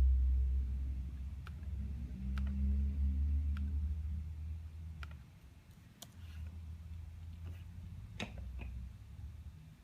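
About seven sharp, irregularly spaced clicks over a low rumble that fades out about halfway through.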